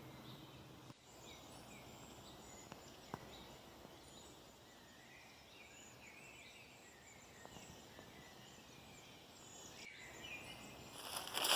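Faint birdsong: many short, scattered chirps and calls over a quiet background hiss. A louder noisy sound sets in near the end.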